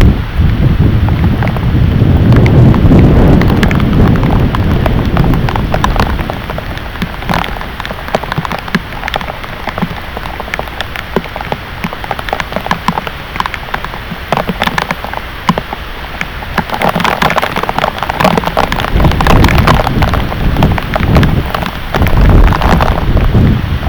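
Heavy thunderstorm rain pelting a surface, a dense hiss full of sharp individual drop hits. A low rumble swells under it for the first several seconds and again in the last third.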